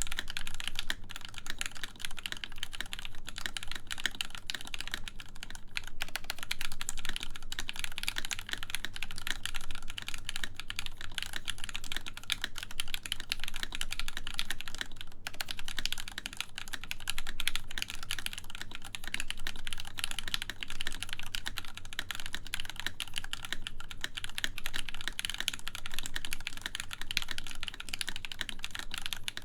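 Continuous fast typing on a full-size mechanical keyboard with lubed Gateron X linear switches, an aluminium plate and MW Retro Lights keycaps: a dense, even run of key clicks and bottom-out clacks with no pauses.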